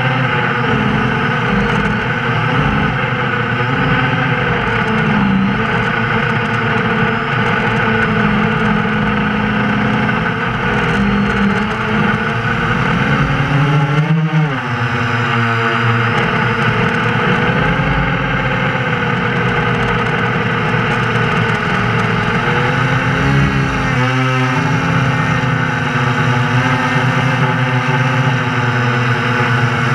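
FPV drone's electric motors and propellers buzzing steadily, the pitch dipping and swinging back up briefly about halfway through and again near the end.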